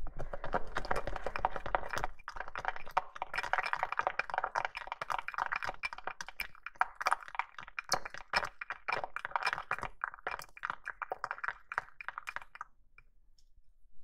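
A plastic spoon stirring coloured shampoo in a small glass bowl: a steady run of quick wet clicks and squishes, stopping a little before the end.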